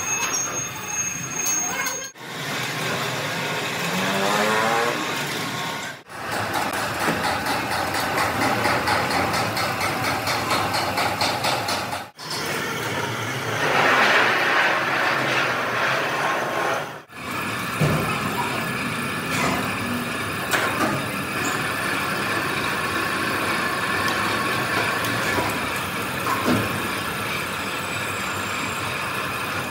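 Metalworking machinery running, broken into several short stretches by sudden cuts. A rising whine comes a few seconds in, and a louder, higher stretch of noise falls around the middle.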